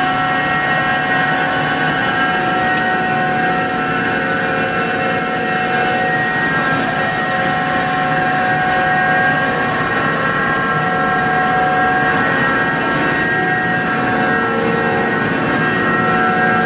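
Chilli grinding plant's pulverizer machinery running: a loud, steady drone with several steady whining tones over a rushing noise.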